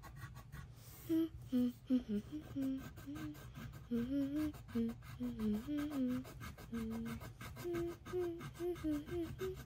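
A child humming a wandering tune of short held notes, starting about a second in. Underneath it, a colored pencil scratches faintly on paper as she colors.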